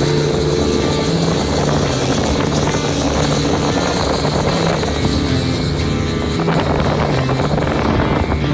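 Twin-turbocharged Honda BF225 V6 outboard motor running steadily under power, its engine note wavering slightly in pitch.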